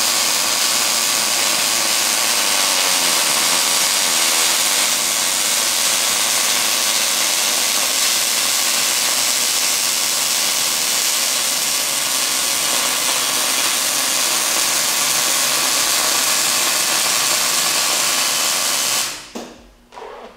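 Millermatic 252 MIG welder running a continuous bead, welding bushings into a steel mower part: a steady hiss from the arc that cuts off suddenly about a second before the end.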